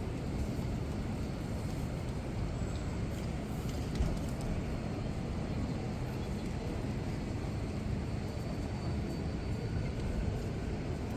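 City street ambience: a steady low rumble of traffic, with a single sharp knock about four seconds in.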